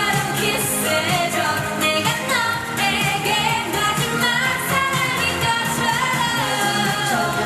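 K-pop song: a sung vocal line over a pop backing track with a steady bass.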